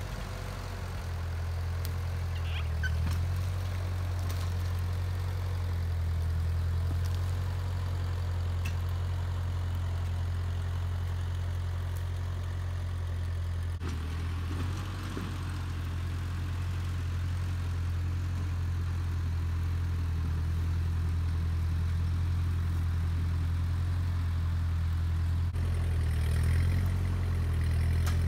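Ford 8N tractor's four-cylinder engine running steadily while the tractor maneuvers and skids a heavy log.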